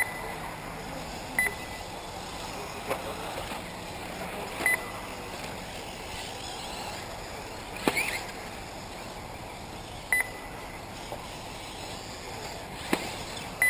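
A race timing system's short high beeps, five of them at irregular intervals, as 1/8-scale electric RC buggies pass the timing line, over the steady hiss of the cars running on the dirt track. Three sharp knocks, the loudest about halfway through.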